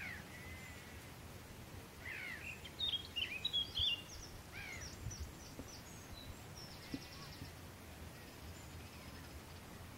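Birds singing: a quick run of chirps and short falling whistles between about two and five seconds in, and a fainter trill near seven seconds, over a steady low background rumble.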